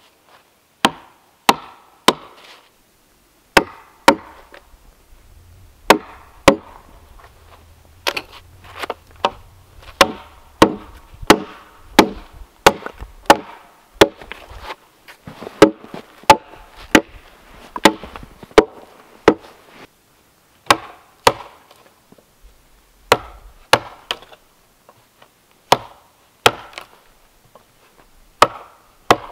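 Wooden mallet striking a wood chisel cut into a log: sharp knocks at an uneven pace of one or two a second, with a few short pauses.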